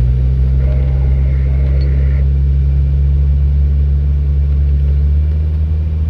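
A Mercedes-Benz car's engine and road noise heard from inside the cabin while driving: a steady, even low drone.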